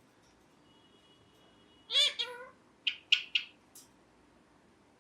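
Ringneck parrot calling: one loud, drawn-out call that bends in pitch about two seconds in, followed by four short, sharp chirps.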